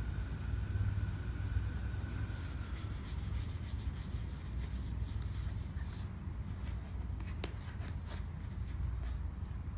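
Paperboard box being slid and pressed against corrugated cardboard by hand: a run of light scrapes, rubs and taps of paper on paper, starting a couple of seconds in, over a steady low hum.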